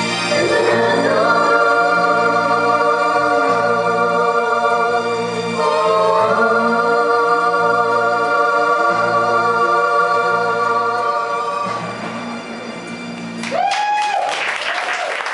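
A man and a woman singing the long, held final notes of a ballad in duet with vibrato, over backing music with a steady bass, which ends about a second and a half before the end. A short whoop follows and the audience starts clapping.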